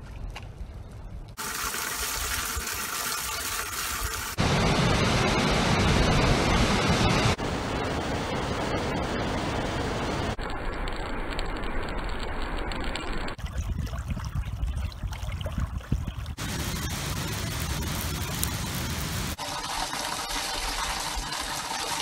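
Running and splashing water in a string of short outdoor recordings that cut abruptly about every three seconds: lapping floodwater, streams and falling water, with no pitched sounds.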